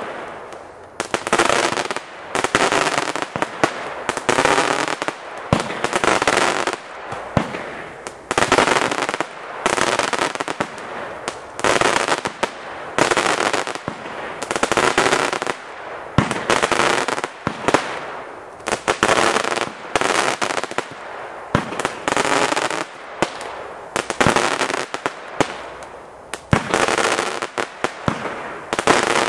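A 25-shot consumer firework cake firing shot after shot, about one a second. Each shot is a sharp bang followed by about a second of fading crackle from the burst.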